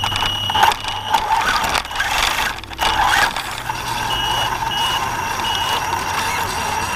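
Axial Yeti RC truck driving, its electric motor and drivetrain whining steadily. Over this comes a high squeak in short repeated chirps, several near the start and three more past the middle. The owner takes it for a bearing made squeaky by hitting a tree with the front left tire.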